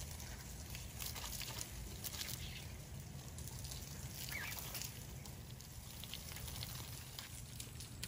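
Outdoor aviary ambience: a low steady rumble with scattered faint clicks, and one short rising bird chirp about four seconds in.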